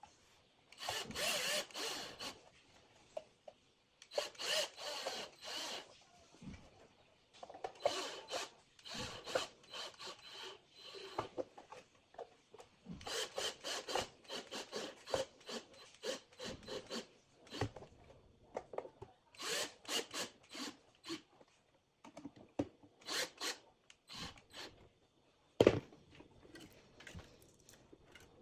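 Black+Decker cordless drill-driver driving screws into the plastic back of a star-shaped lamp, in a string of short runs each a second or two long. A single sharp knock comes near the end.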